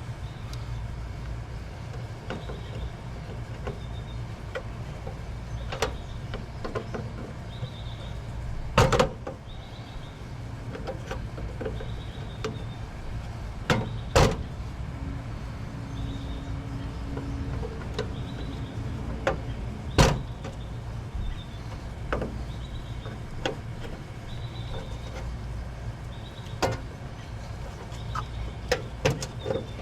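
Hands disconnecting wire connectors and pulling an air conditioner's control board out of its control box: scattered clicks and clacks of plastic and metal, with a few sharper knocks, over a steady low hum.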